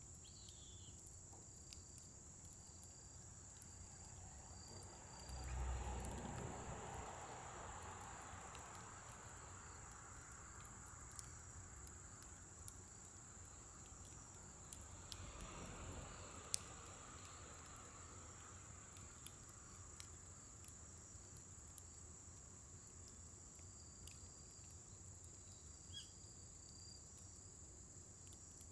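Faint scrap-wood fire in a fire pit crackling, with scattered sharp pops, over a steady high insect trill. Two soft swells of rushing noise rise and fade, one about five seconds in and another about fifteen seconds in.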